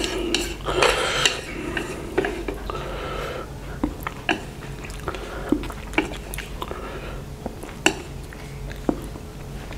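Wooden chopsticks clicking and scraping against a ceramic plate while picking up the last fried instant noodles: scattered sharp taps, with longer stretches of scraping near the start and a couple of seconds in.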